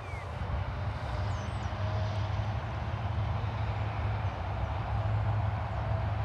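Low, steady drone of approaching Tasrail TR-class diesel locomotives, still distant, growing slowly louder.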